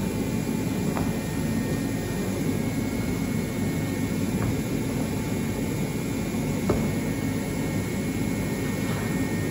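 A steady low mechanical drone, with a few faint knocks about one second in, midway and near seven seconds in.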